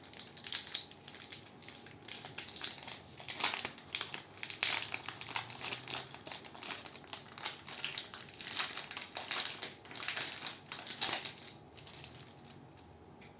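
Candy wrappers crinkling as sweets are handled and unwrapped, in many quick, irregular crackles; it dies away about a second before the end.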